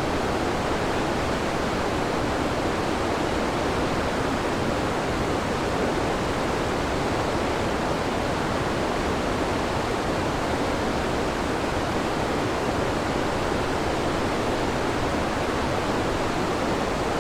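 Waterfall rushing: a steady, even roar of falling water with no other sound standing out.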